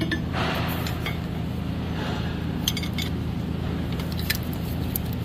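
A few light metallic clinks of small steel parts and tools being handled at the engine, over a steady low hum.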